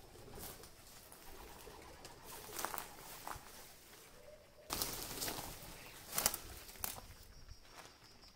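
Birds in a ruined building: a few brief wing flurries and a soft call among scattered light knocks and rustles. The loudest flurry comes about five seconds in.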